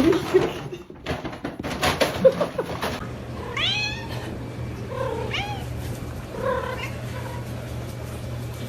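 A domestic cat meowing three times, with arching calls about three seconds in, then at five and six and a half seconds; the first call is the longest and loudest. A steady low hum runs under the calls. Before them come about three seconds of loud, indistinct noise with knocks.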